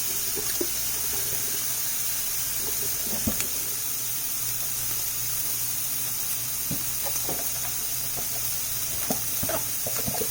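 Shrimp frying in a hot pan: a steady sizzle, with a few short knocks of a utensil against the pan.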